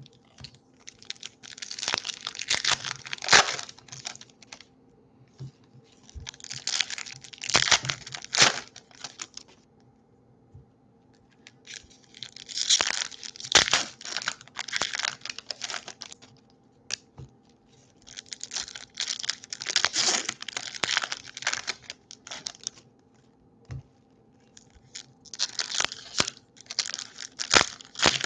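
Foil wrappers of Topps baseball card packs being torn open and crinkled by hand. The crackling comes in five bouts of two to four seconds each, with short quiet gaps between them.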